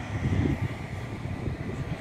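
Wind buffeting the microphone outdoors: an uneven low rumble that rises and falls in gusts.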